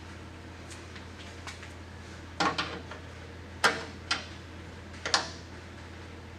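Several sharp metallic clicks and clinks of a small wrench on a brake line fitting as it is tightened, over a steady low hum.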